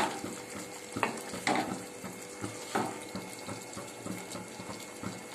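Wooden spatula stirring and scraping chicken pieces around a kadai in irregular strokes, over a light sizzle of frying.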